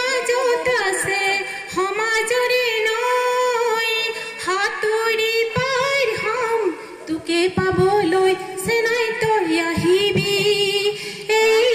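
A woman singing an Assamese song solo into a microphone and heard through loudspeakers, with long held notes and melodic turns, broken by short pauses for breath.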